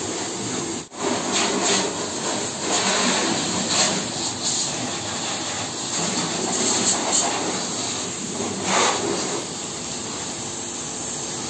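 High-pressure water jet from a pressure washer lance hissing as it sprays a car's body, the spray noise swelling and easing as the jet moves over the panels.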